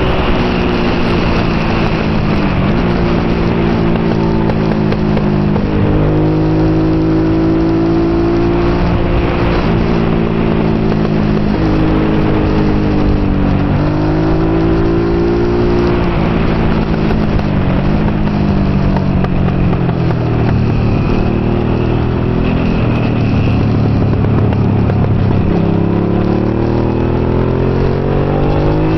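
Honda NT650 Hawk GT's V-twin engine at racing speed, heard from on board, its pitch climbing and dropping several times as it accelerates and slows through the corners.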